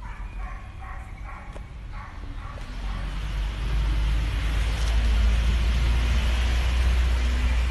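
Steady outdoor background noise: a low rumble throughout, with a hiss that grows louder about three seconds in.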